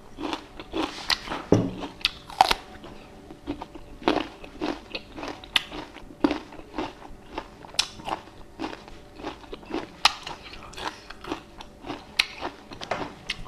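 Someone chewing crunchy fresh fruit, a continuous run of irregular crisp crunches and wet bites.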